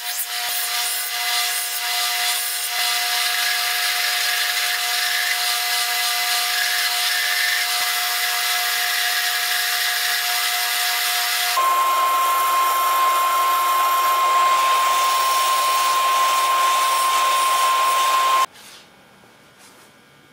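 Belt sander running while a metal piece is ground against its abrasive belt: a steady machine whine over a rasping hiss. About two-thirds of the way through, the whine jumps to a single higher tone, and near the end the sound cuts off suddenly.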